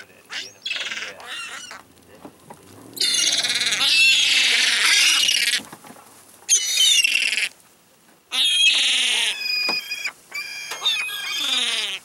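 Gulls calling: a series of high cries, some falling in pitch, the longest stretch running about two and a half seconds from about three seconds in.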